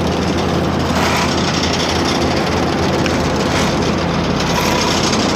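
Asphalt paver's diesel engine running steadily close by: a constant low drone with a broad mechanical noise over it.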